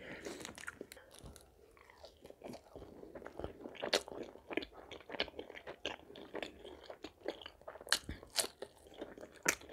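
Close-miked chewing of butter chicken and butter naan: irregular mouth clicks and smacks, with a short pause about a second in.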